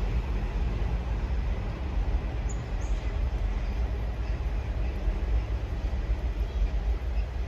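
Wind buffeting the microphone, a steady gusty rumble, with a couple of brief high bird chirps about two and a half seconds in.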